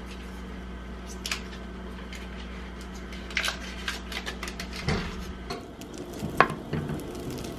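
Butter and a wooden spatula knocking and scraping in a stainless steel saucepan on the stove as the butter melts: a handful of light, scattered knocks. A steady low hum sits underneath and stops about two-thirds of the way through.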